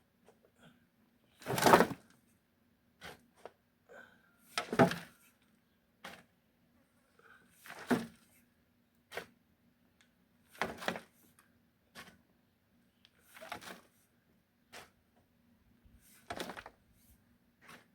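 Irregular strikes and scrapes of a digging tool working murram soil, about one every one to three seconds, the heaviest about two and five seconds in, over a faint steady hum.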